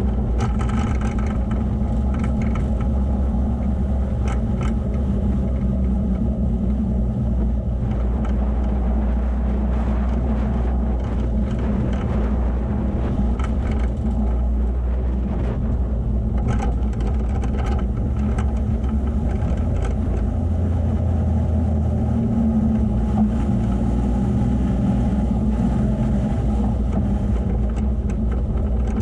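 Vehicle engine running steadily while driving over a sandy dirt track, with occasional brief knocks from the bumpy ground.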